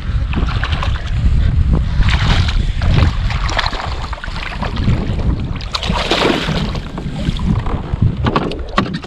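Wind buffeting the microphone as a steady low rumble, with splashing from a hooked largemouth bass thrashing at the surface, loudest a few times in the middle.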